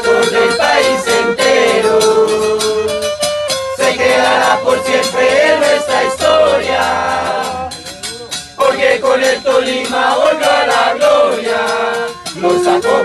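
Voices singing a football supporters' chant in Spanish over rattle-like percussion, with short breaks between sung lines.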